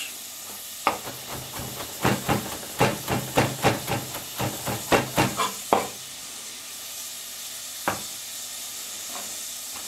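Kitchen knife chopping young carrot greens on a cutting board: a quick run of sharp taps for about five seconds and one more tap near the end. Under it, a steady hiss from carrots sizzling in butter in a pot as they glaze.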